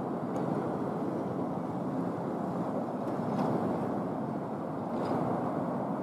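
Steady low rumble of outdoor background noise, with three faint ticks about half a second, three and a half seconds and five seconds in.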